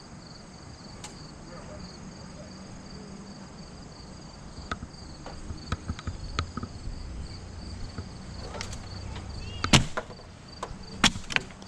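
Steady insect chorus with a low hum underneath. From about five seconds in come scattered clicks and knocks, with two sharp cracks or thuds near the end, the first and loudest about ten seconds in.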